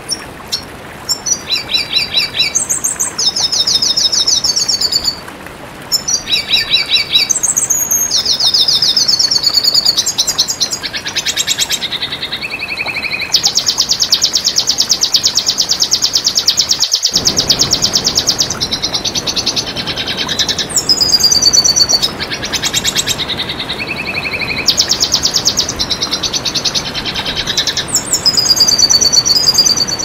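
Red siskin singing: a rapid run of high twittering phrases and buzzy trills, with one long buzzing trill near the middle and sliding whistled notes later on, over a steady hiss.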